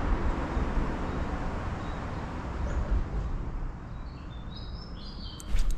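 Steady outdoor rumble and hiss, like wind on the microphone or distant traffic, with a few short bird chirps in the second half. A sudden louder burst of noise comes just before the end.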